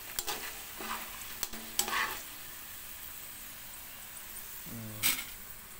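Potato strips sizzling in hot oil in a steel wok with a steady hiss. Metal tongs stir them and click against the wok a few times in the first couple of seconds.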